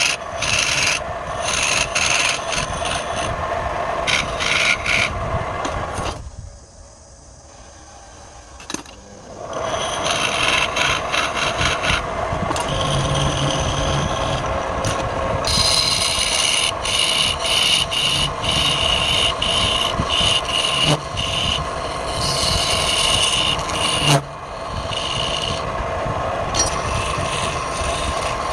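Woodturning: a tool scraping and cutting against wood spinning on a lathe, a continuous rasping sound over a steady machine hum. It drops away briefly about six seconds in, then carries on.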